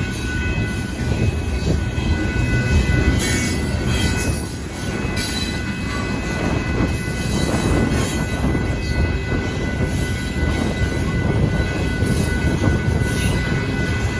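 Union Pacific hopper-car freight train rolling past close by: a steady loud rumble of wheels on rail with scattered clanks and a thin, steady high wheel squeal.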